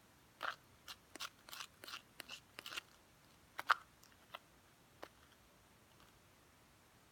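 Freshly mixed slime being worked by hand, giving a run of short sticky pops and crackles, bunched in the first three seconds with a few single ones after.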